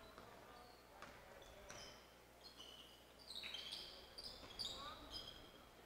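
Faint basketball gym sounds: a few ball bounces, then from about halfway on a flurry of short, high squeaks from sneakers on the court floor as play resumes.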